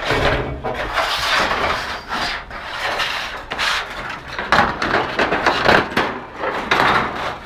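Scrap and junk scraping, rubbing and knocking as it is shifted and packed into a full pickup truck bed, in irregular surges.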